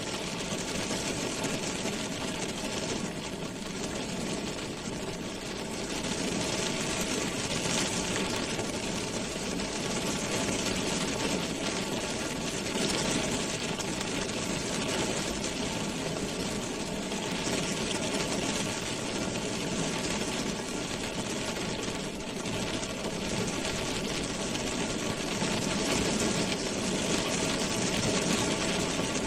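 Rain drumming on a car's roof and body, heard from inside the car: a dense, steady patter of drops.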